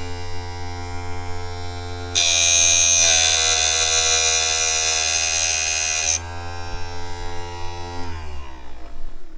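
Small electric piston ring gap grinder: its motor runs with a steady hum, and for about four seconds in the middle the abrasive wheel grinds the end of a piston ring with a loud, bright hiss, taking metal off to open the ring gap. The motor winds down near the end.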